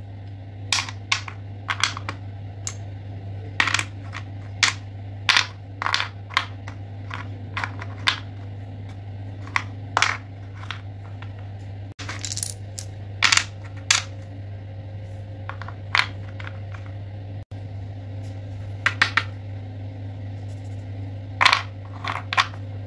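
Wooden puzzle pieces clacking as they are picked up and set into the slots and pegs of a wooden board: sharp, irregular taps and clicks. A steady low hum runs underneath.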